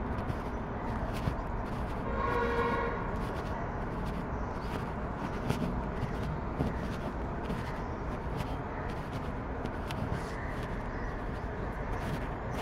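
Steady outdoor background with wind rumbling on the microphone, and a single horn toot about two seconds in, lasting under a second.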